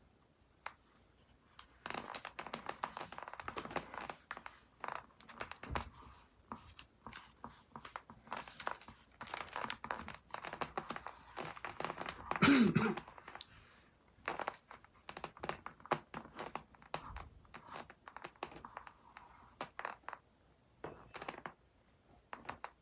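Hands working a self-adhesive LED light strip onto a motorcycle helmet shell: irregular scratching, rubbing, crinkling and tearing sounds with small clicks. A brief falling tone about halfway through is the loudest moment.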